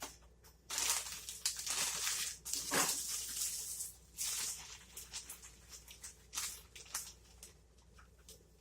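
Plastic zip-lock bag crinkling and rustling in bouts as sugar-coated biscuit pieces are taken out, loudest in the first few seconds, with a few light taps later.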